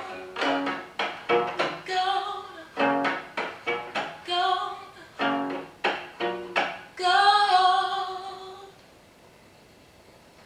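Plucked (pizzicato) cello notes with a woman singing over them. The song closes on a long held sung note that fades out about three-quarters of the way through, leaving only faint room tone.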